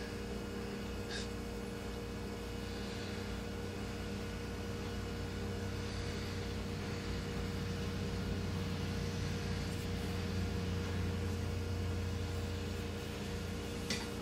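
Steady low machine hum made of several steady tones, with a few faint clicks; the low drone swells a little past the middle.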